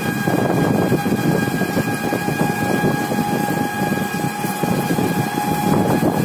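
Three-wheeled rickshaw driving along a road, heard from inside: a steady rumble of motor and road noise with a constant high whine over it.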